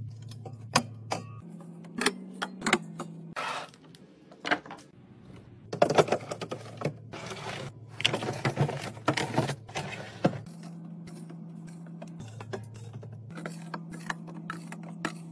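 Cans and packaged snacks clicking and clacking as they are set down on glass fridge shelves, with a few seconds of scraping and rustling as a cardboard box is slid in. Soft background music with a low bass line plays underneath.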